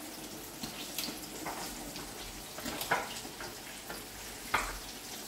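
Pan of sautéed tofu and vegetables cooking on the stove, sizzling steadily, with a few light clicks, while it is being seasoned with patis (fish sauce).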